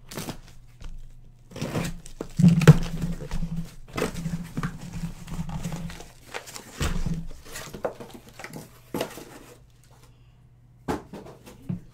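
A cardboard shipping case being torn open and emptied: short bursts of tearing, crinkling and scraping cardboard, with knocks as the boxes inside are pulled out and set down. The loudest burst comes about two and a half seconds in.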